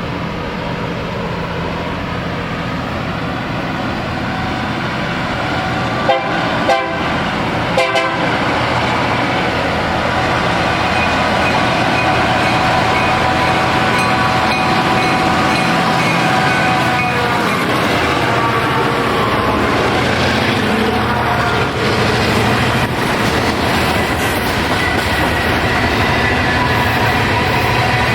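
A train passing close by, its horn sounding a held multi-note chord for several seconds, over the steady rumble of the train growing louder as it nears. There are a few sharp knocks just before the horn starts.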